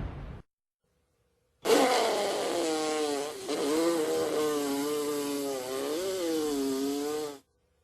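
Cartoon sound effect of a small motor buzzing for about six seconds, starting about a second and a half in, its pitch wavering up and down and then cutting off. Before it, at the very start, the tail of a loud noisy crash fades out.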